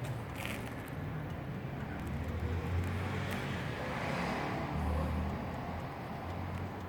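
Steady low rumble of road traffic in the background, with no clock ringing or ticking heard.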